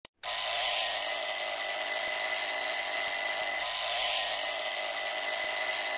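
Alarm clock bell ringing in a continuous, steady metallic jangle.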